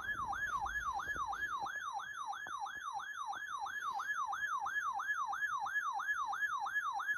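Electronic yelp-style siren tone: a clean pitch that falls and snaps back up about three times a second, steady throughout.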